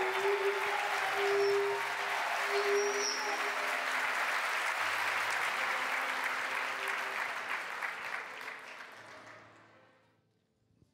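Congregation applauding and cheering. The applause dies away over the last couple of seconds.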